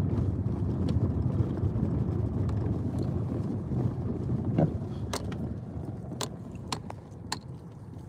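Car cabin road noise: a steady low rumble of the tyres on a snowy road, fading over the last few seconds. A few sharp clicks sound in the second half.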